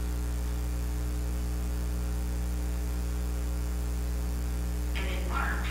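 Steady electrical mains hum in the church's recording and sound-system feed, low and unchanging, during a pause in speech. A woman's voice starts speaking again about five seconds in.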